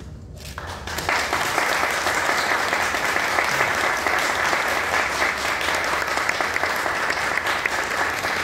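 Audience applauding: clapping breaks out about a second in and keeps up steadily.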